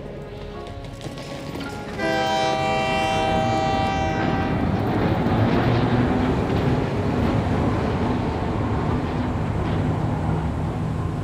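A train horn sounds once, suddenly, about two seconds in, and holds for about two and a half seconds. A steady, loud rumble of the train running on the track follows and lasts to the end.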